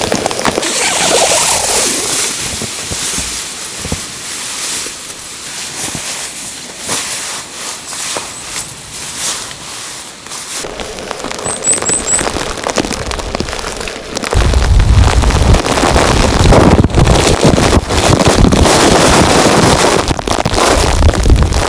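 Wet, heavy snowfall pattering and ticking on surfaces over a steady hiss. About fourteen seconds in, wind gusts start buffeting the microphone with a loud low rumble that lasts to the end.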